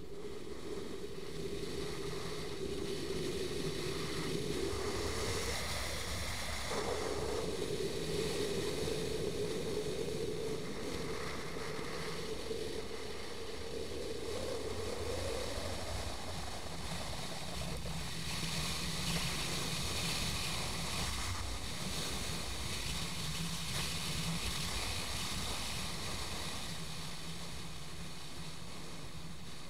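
Motorbike engine running on the move, nearly buried under wind rushing over the microphone; its pitch dips and then jumps up about seven seconds in, and rises again around the middle.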